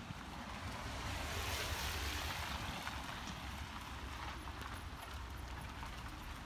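Traffic on a wet, slushy street: car tyres hiss on the wet road as a car passes, swelling about two seconds in, over a steady low rumble.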